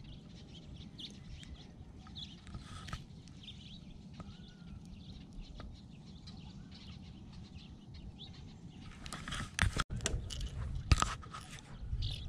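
Faint bird chirps over a low, steady outdoor background. From about nine seconds in comes a run of close, sharp knocks and rustles: the caught largemouth bass being handled against the kayak and camera.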